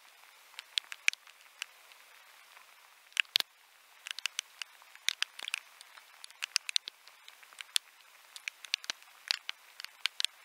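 Raindrops striking the camera housing: irregular sharp taps, several a second and uneven in loudness, over a faint steady hiss.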